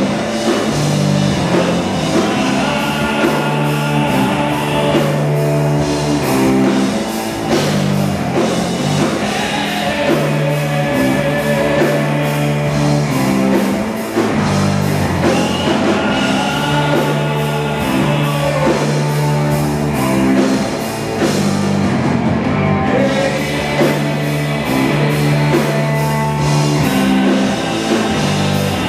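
Live heavy rock band playing loudly: electric bass holding low notes that shift every second or so under drum kit with cymbals and guitar, steady throughout.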